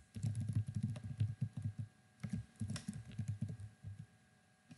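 Typing on a computer keyboard: a quick run of keystrokes, a short pause, then a second run that stops about a second before the end.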